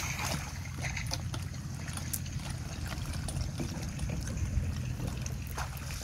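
Rustling and crunching of dry marsh reeds and brittle ice underfoot, scattered short clicks over a steady low rumble.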